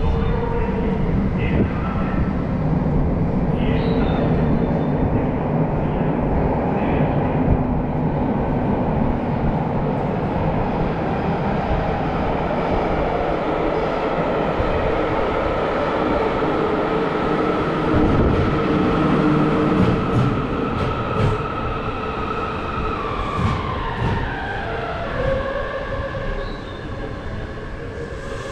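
A Yokohama Municipal Subway Green Line train, a linear-motor metro, approaching through the tunnel and pulling into an underground station platform, with a steady rumble. Toward the end its motor whine falls in pitch as it brakes to a stop.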